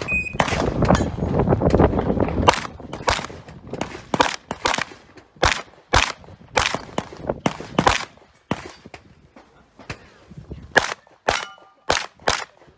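Competition pistol firing a rapid IPSC stage course of fire: about twenty sharp shots, mostly in quick pairs with short pauses between targets. A dense rush of low noise sits under the shots for the first two seconds or so.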